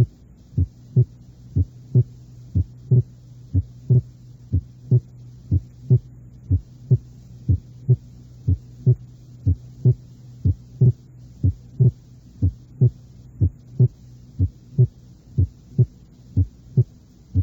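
Heart sounds: first and second sounds alternating steadily at about one heartbeat a second over a steady low hum. They demonstrate paradoxical splitting of the second sound, split during expiration and single during inspiration, which is the sign of a left bundle branch block.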